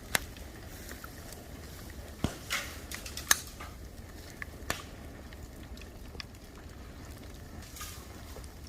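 Bamboo bonfire crackling, with a few sharp pops in the first five seconds, the loudest about three seconds in, then lighter crackle over a low steady rumble.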